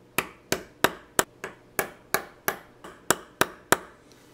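Small hammer tapping repeatedly on a screwdriver seated in the seized barrel arbor screw of a pocket-watch movement, about a dozen sharp taps at roughly three a second, to shock the tight screw loose.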